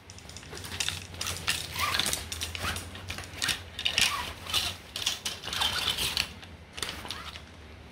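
Irregular clicking and rattling of fishing rods and tackle being handled, over a steady low hum.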